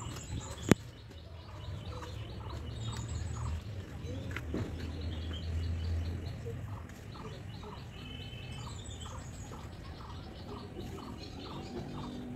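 Small birds chirping, one repeating a short note about three times a second; a single sharp click about a second in.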